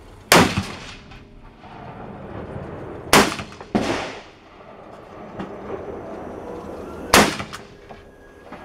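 AR-15 rifle in .223 Remington firing single shots: three sharp reports roughly three and four seconds apart, each followed by a long echo, with another report about half a second after the second shot.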